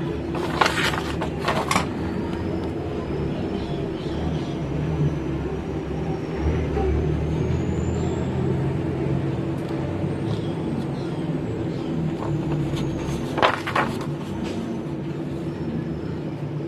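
A steady low rumble, with a faint high whine gliding up and back down through the middle. Sharp clicks come about half a second to two seconds in and again near the thirteen-second mark.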